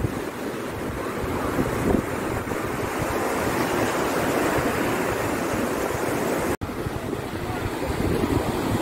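Wind buffeting the phone's microphone, with the rushing wash of sea surf underneath. The sound cuts out for an instant about two-thirds of the way through.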